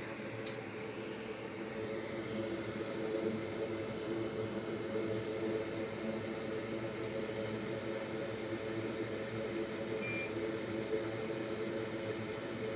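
Steady whirring hum of a small electric fan or blower motor, with one sharp click about half a second in and a brief high beep around ten seconds in.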